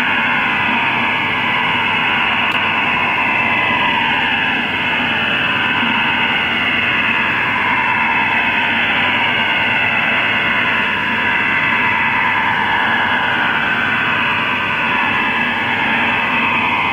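STANAG 4285 military data signal received on shortwave at 6333 kHz: a steady, dense hissing buzz filling the radio's audio band, with slow sweeping fades running through it. The signal is carrying the repeated IDR station identification shown by the decoder.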